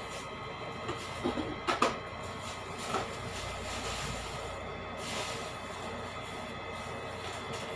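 A few short knocks and clatters of household things being moved about while someone rummages for something, loudest about a second and a half in, with another knock at about three seconds and a soft rustle after that. A steady mechanical hum runs underneath.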